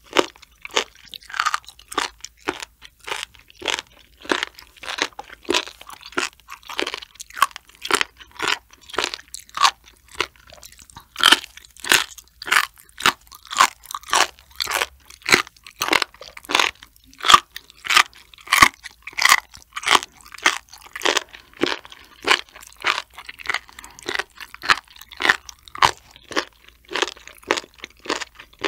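Close-miked chewing of raw sturgeon sashimi and its cartilage, with crisp, wet crunches at a steady pace of about two a second.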